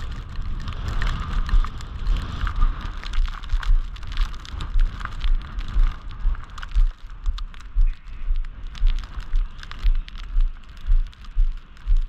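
Footsteps crunching on fresh snow at a steady walking pace, about two steps a second, each step giving a dull thud with a gritty crunch.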